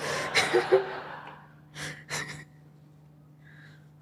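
Breathy noise on a stage microphone that fades out, then two short knocks about two seconds in, over a low steady hum.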